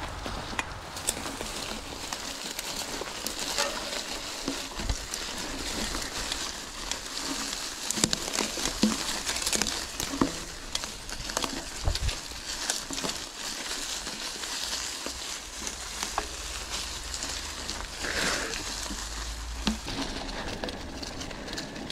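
Mountain bike tyres rolling over a dry autumn forest trail strewn with leaf litter and twigs, a continuous crackling and crunching made of many small clicks. Sharper knocks come now and then as the bike goes over bumps.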